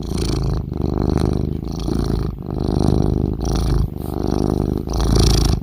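Domestic cat purring loudly, a continuous rumble that shifts with each in- and out-breath every half second to a second.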